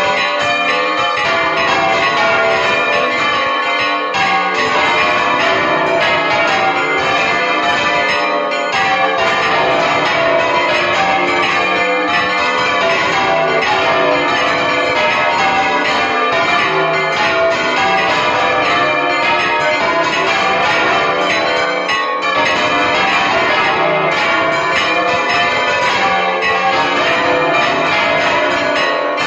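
Two large bronze church bells swung full circle by hand, ringing alternately, heard from close up inside the belfry. Their frequent strokes overlap into a loud, continuous ringing.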